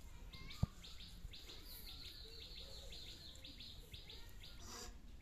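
A bird chirping rapidly and steadily, about six short high notes a second. A single sharp click is heard just under a second in.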